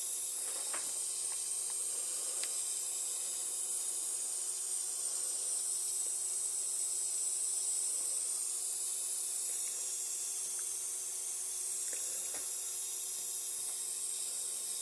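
Steady high-pitched sizzling hiss, like frying eggs, from the 1000 µF 200 V electrolytic filter capacitors of a powered-up MFJ-4275MV switching power supply. The owner takes it for the sign of failing capacitors.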